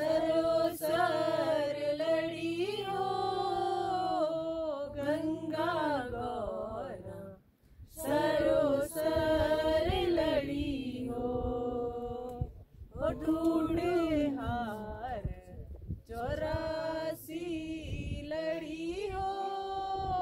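Women singing a Hindi Shiva bhajan unaccompanied, a lead voice with others joining in, in long held melodic phrases with a few short pauses between them.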